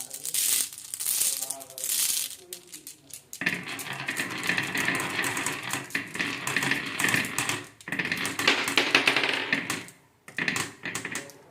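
Marbles rattling and clacking down a HABA marble run: a dense stream of fast clicks starting about three seconds in, thinning to a few scattered clicks near the end.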